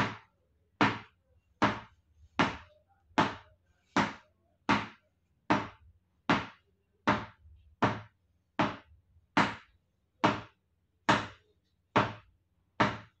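A hard tennis ball bouncing again and again on the face of a Kashmir willow cricket bat, held flat to show off the bat's sound. Sharp, even knocks, about one every 0.8 seconds, each dying away quickly.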